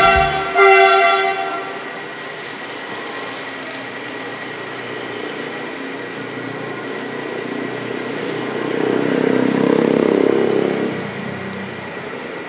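CC300 diesel-hydraulic locomotive (Caterpillar 3512B V12) sounding its horn in two short blasts at the start, then running with its engine under a steady hiss of heavy rain. Its engine note swells from about eight to eleven seconds in as it throttles up to pull away, then eases off.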